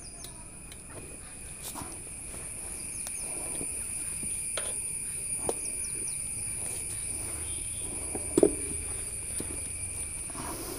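Scattered clicks and rubbing as a motorcycle tyre is worked by hand onto a spoked rim over its inner tube, with one louder knock late on.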